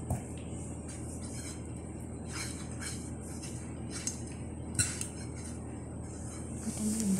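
Fingers rubbing oil over a clear glass pie dish, with scattered short taps and knocks of the glass dish against the hand and table; the sharpest comes about five seconds in. A steady hum runs underneath.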